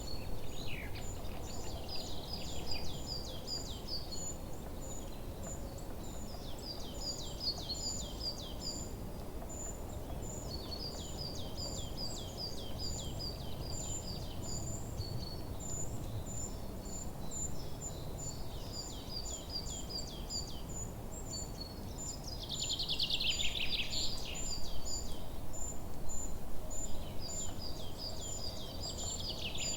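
Forest birds singing: short phrases of rapid repeated notes come every couple of seconds, with a louder, denser burst of song about three quarters of the way through. A steady string of high, evenly spaced chirps and a low background rush run underneath.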